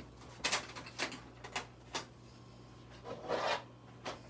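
Makeup products and their packaging being handled and put down: several short rubs and scrapes about half a second apart, then a longer rasp a little past three seconds in.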